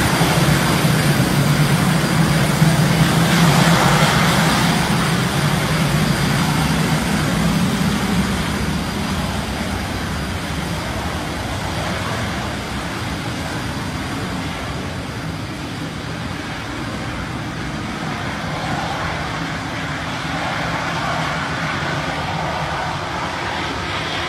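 Twin General Electric J85 turbojets of a Cessna A-37B Dragonfly running as the jet taxis: a steady jet noise with a low drone. The drone fades after about eight seconds as the aircraft turns and moves away.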